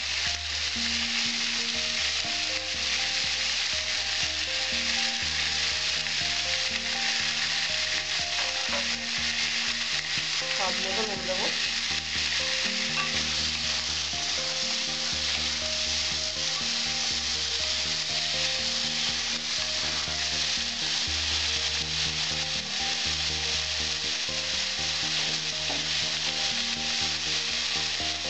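Carrot and green vegetable pieces sizzling in hot oil in an aluminium kadai, stirred and turned with a spatula. The frying hiss runs steadily under the stirring.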